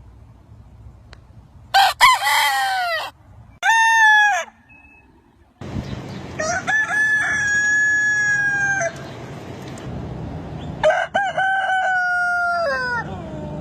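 Rooster crowing four times, the last two long, held crows that drop in pitch at the end.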